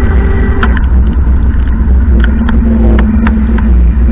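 Heavy, steady low rumble of wind and road noise on a moving vehicle's dashcam microphone, travelling on a wet road, with a low engine hum growing stronger about two seconds in and a few sharp ticks scattered through.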